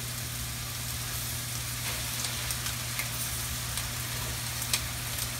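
Flour-dredged Spanish mackerel fillets sizzling in hot peanut oil in a frying pan: a steady hiss with a few faint pops, over a low steady hum.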